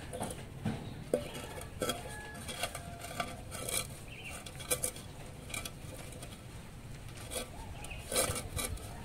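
A metal pot with a wire handle being set down and shifted on a stand of bricks: scattered light clanks, taps and scrapes at irregular intervals.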